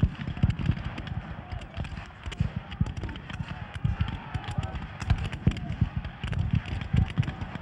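Massed black-powder rifle-musket fire in a steady crackle, many overlapping shots a second, with men shouting over it.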